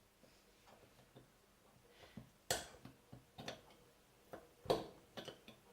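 A handful of sharp, irregular clicks and knocks, the loudest about two and a half seconds in and again just before five seconds in.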